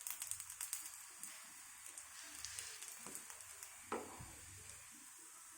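Oil sizzling and crackling faintly under a rice-flour sarva pindi flatbread cooking in a non-stick pan. The crackles thin out after the first couple of seconds, and there is a single knock about four seconds in.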